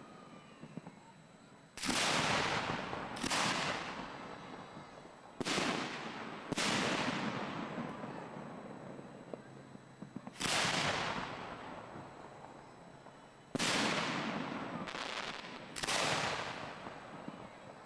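Fireworks going off: eight loud booms at irregular intervals, each with a long echoing tail.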